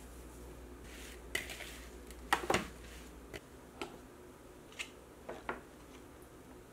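Kitchen handling sounds: scattered light knocks and clinks of plastic food containers against a glass mixing bowl, the loudest cluster about two and a half seconds in.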